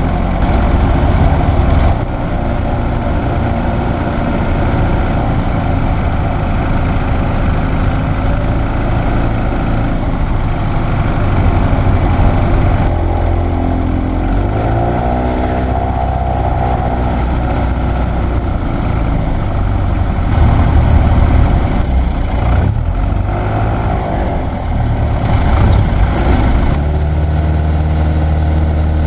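Piper J-3 Cub's four-cylinder Continental engine and propeller running at low power while the plane taxis. The engine note swings briefly around the middle and settles into a deeper, stronger hum near the end.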